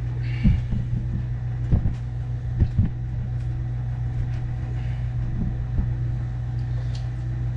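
A machine running with a steady low hum, with a few dull knocks about half a second, two and three seconds in.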